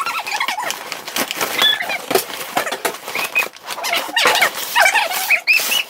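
Plastic toy packaging being worked open by hand: dense crinkling, crackling and clicking, with a few brief squeaks near the end.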